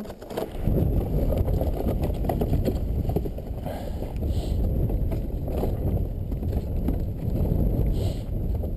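Dog sled runners sliding over a snow-covered road as the team pulls: a steady low scraping noise, mixed with wind on the microphone.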